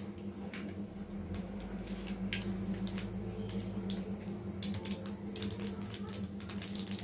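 Hot oil in an aluminium kadai sizzling and crackling, with scattered sharp pops that come more often in the second half, over a steady low hum.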